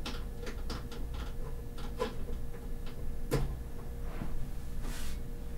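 Hands handling a desktop PC tower and its cables: a string of light clicks and knocks, the sharpest about three seconds in, and a brief rustle near the end, over a steady low hum.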